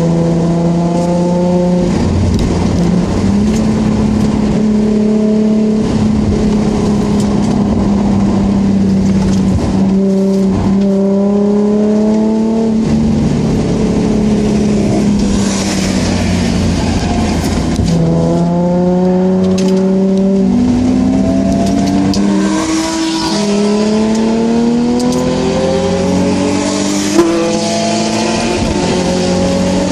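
Nissan 350Z's 3.5-litre V6 heard from inside the cabin at track speed. The engine note climbs and falls repeatedly as the car accelerates and changes gear. There is a single sharp knock near the end.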